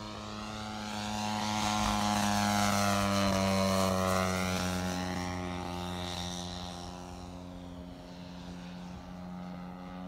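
Radio-controlled Junkers Ju 87 Stuka scale model's propeller engine during a flypast: the sound swells to its loudest around three seconds in and then fades, its pitch dropping as the plane goes by.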